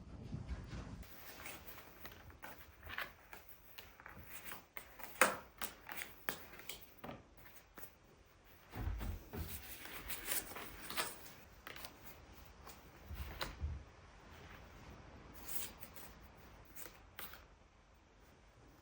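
Playing cards being shuffled and dealt: a run of irregular light snaps and clicks, with a couple of soft thumps.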